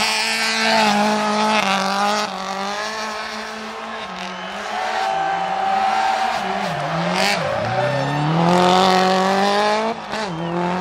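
Subaru Impreza WRX STI Spec C's turbocharged EJ20 flat-four with equal-length headers, revving hard through a tight corner. The revs hold high, drop sharply about seven seconds in, then climb steadily as the car accelerates away.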